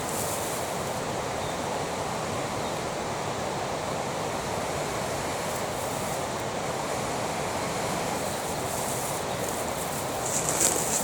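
Steady rushing of a river running close by, with a short rustle about ten seconds in.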